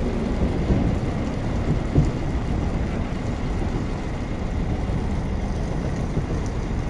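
Wind buffeting the microphone: a low, uneven rumbling hiss, with one short knock about two seconds in.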